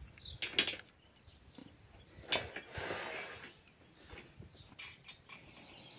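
Birds chirping faintly in the background, with a few light knocks near the start and a short rustle about halfway through.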